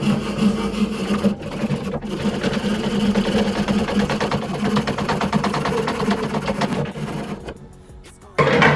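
Small motorised saw cutting through a bow limb of laminated bamboo veneers, fiberglass and sinew, with a fast, even buzzing rhythm. The cut stops about seven and a half seconds in, and a short loud burst comes near the end.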